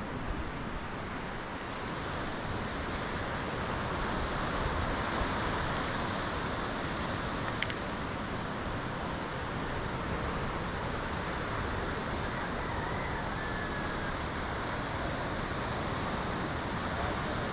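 Steady wash of ocean surf breaking against rocks and the foot of the sea cliffs below, mixed with wind on the microphone.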